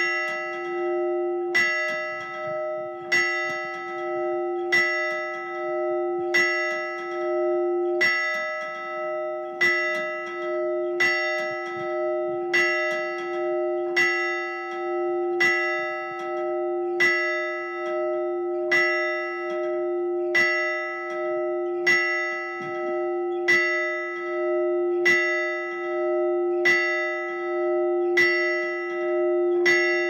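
A single church bell hung in a steel frame, rung at a steady, even pace of about one stroke every second and a half. Each stroke sounds over the still-humming tone of the one before.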